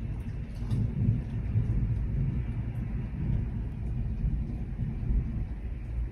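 Thunder rolling through a heavy storm: a long low rumble that swells about a second in and stays strong, with a few faint ticks over it.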